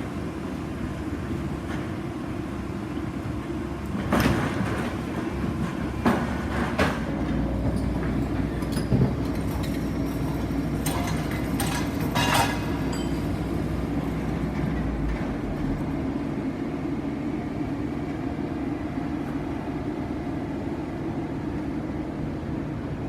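Heavy construction machinery running steadily, most likely a Soilmec SR-series drilling rig, with a handful of sharp metallic clanks through the first half. A deeper rumble joins in for several seconds in the middle.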